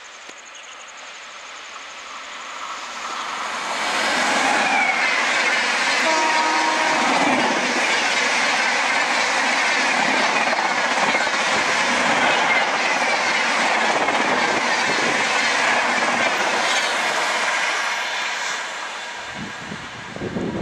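WAP7 electric locomotive and its passenger coaches passing at about 130 km/h: the rushing noise builds over the first four seconds, a short horn note sounds about six seconds in, then the coaches pass with steady wheel clatter on the rails before the sound fades near the end.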